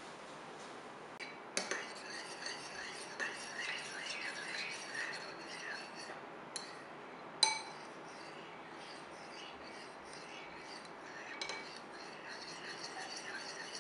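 Metal spoon stirring and scraping through thick, set pectin glazing jelly in a ceramic bowl, with small squeaks of the spoon on the bowl and a few sharp clinks, the loudest about seven and a half seconds in. The jelly has set to a gluey consistency, ready for glazing.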